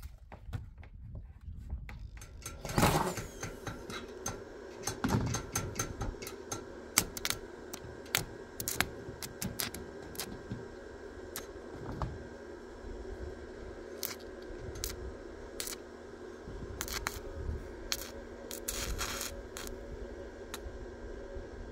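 Electric arc welding on a steel roof frame: irregular sharp pops and crackles over a steady hum, with a loud burst about three seconds in.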